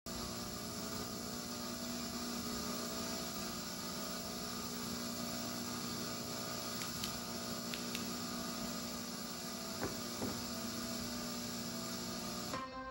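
Steady electrical hum and hiss from old videotape playback, with a few faint clicks. Just before the end the hiss drops away.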